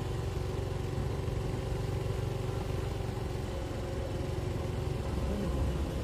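Motorcycle engine running steadily at a low, even speed while riding.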